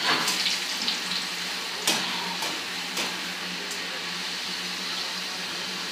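Chips for nachos deep-frying in hot grease: a steady sizzle with a few sharp pops, the loudest about two seconds in, over a faint steady low hum.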